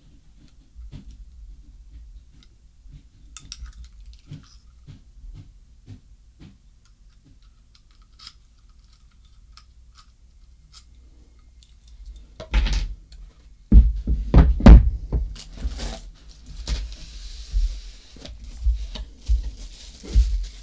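Keys and a smart door lock's parts being handled. Faint clicks and jingles come first. From about twelve seconds in there are louder knocks and clatter, and a rustling hiss near the end.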